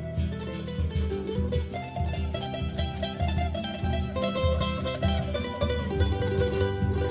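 Background music with quickly plucked string melody notes over a steady low beat.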